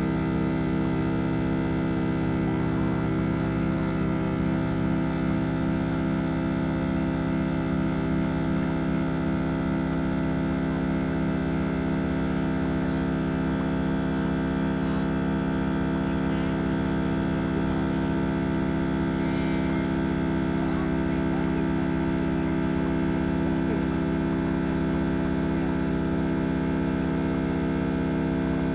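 A boat's engine running at a steady speed, a constant low hum that does not change.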